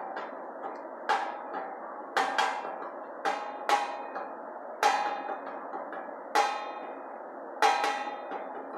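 A repeating percussion rhythm: sharp, ringing, cowbell-like strikes about once a second with quicker off-beat hits between, over a steady hiss.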